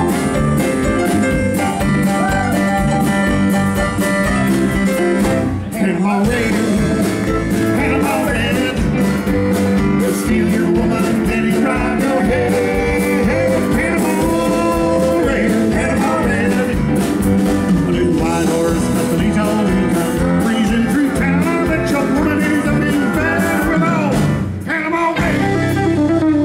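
Live band playing, with electric guitar, electric bass, drum kit and keyboard, and a sung vocal line over it.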